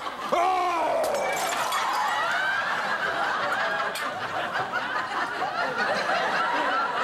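Studio audience laughing, a sustained wave of many people's laughter.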